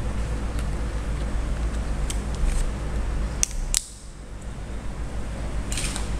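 Handling clicks of an HTC Desire S smartphone's plastic bottom back cover being fitted over the battery and SIM compartment and snapped shut. Two sharp clicks come a little past the middle, and a brief scraping rustle follows near the end, over a steady low hum.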